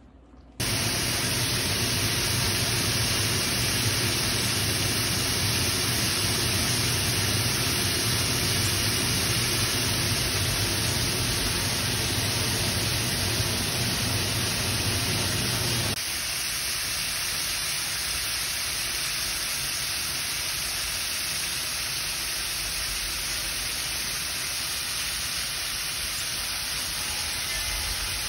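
Chicken wings deep-frying in hot oil in a Dutch oven: a loud, steady sizzling hiss of bubbling oil that starts suddenly and turns a little quieter about halfway through.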